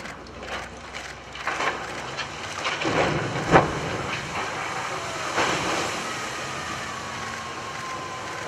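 A cargo ship launched sideways off a slipway and crashing into the water. There are knocks and thuds as it slides, the loudest bang about three and a half seconds in as the hull strikes, then a steady rush of splashing water and spray, with a faint falling whistle near the end.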